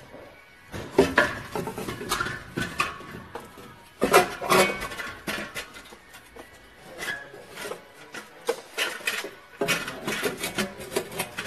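Loose exhaust manifold on a Suzuki 1.6 L 16-valve engine being worked off its studs and maneuvered out of the engine bay: irregular metal clanks, knocks and scrapes, loudest about a second in and about four seconds in, with another cluster near the end.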